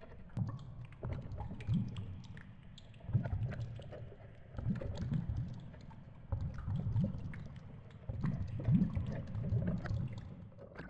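Underwater water noise picked up by a GoPro as a hooked fish is reeled up: low, muffled rushing that swells and fades every second or two, with faint scattered clicks.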